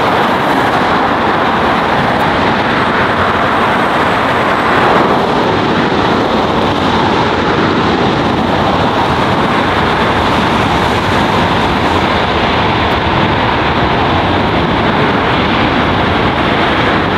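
Boeing 747-8's four GEnx-2B turbofan engines running at high power on the takeoff roll, a loud steady roar.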